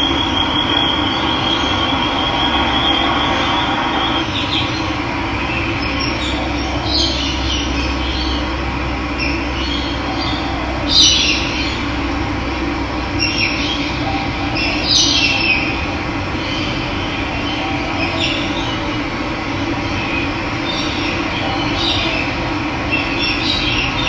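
Steady rush of running water, with birds calling over it in short high chirps now and then, the loudest about halfway through. A high steady trill sounds for the first few seconds.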